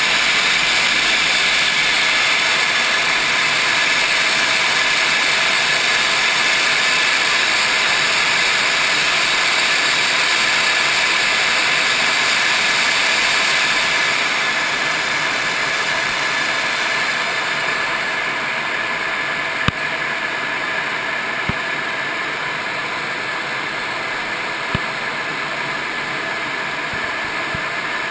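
Steady jet-engine and airflow noise inside the cockpit of a MiG-29UB in flight, easing slightly about halfway through. A few short clicks sound in the second half.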